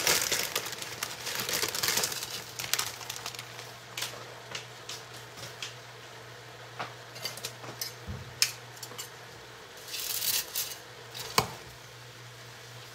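Plastic bag crinkling and dry pancit noodles rustling as they are tipped into a stainless stockpot of vegetables, then scattered light clicks and rustles, with a sharp clack near the end as metal tongs go into the pot. A steady low hum runs underneath.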